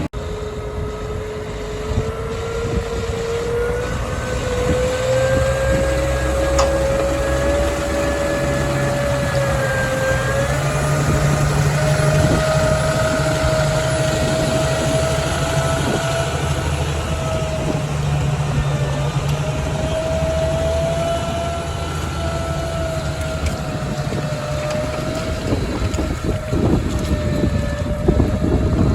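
Tractor engine running steadily under load while ploughing, heard from inside the cab, with a steady whine that rises a little in pitch over the first several seconds and then wavers slightly.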